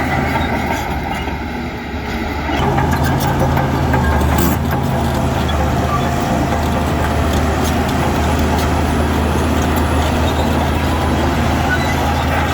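Heavy construction machine's diesel engine running steadily under load, working harder from about two and a half seconds in, with a few faint clanks.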